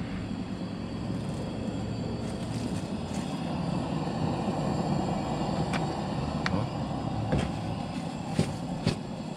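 Propane camp-stove burner running with a steady low rush under a skillet of heating oil. A few light clicks and taps of a plastic bottle and cap being handled come in the second half.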